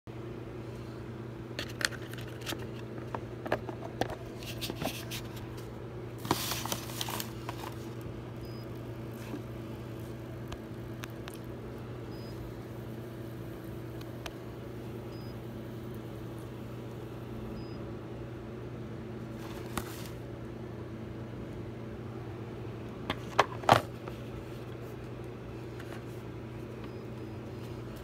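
Crane ultrasonic humidifier running with a steady low electrical hum. Scattered clicks and rustling handling noise come in the first several seconds, and two sharp clicks, the loudest sounds, come near the end.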